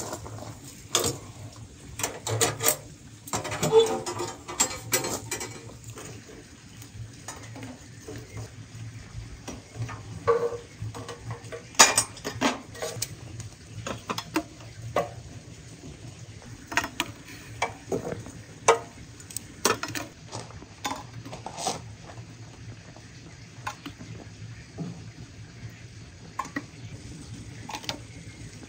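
Metal clinks and knocks from handling a samovar: iron tongs and charcoal against the metal rim of its firebox, and its chimney and body parts knocking together. The knocks come irregularly, with a short ringing clang near 4 s and the sharpest knock about 12 s in.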